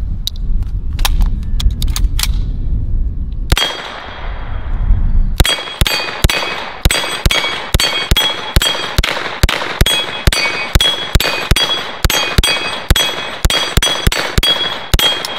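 9mm UZI Model B firing rapid single shots, about three a second, at a steel dueling tree. Many shots are followed by a bright ring as a steel paddle is hit and swings across.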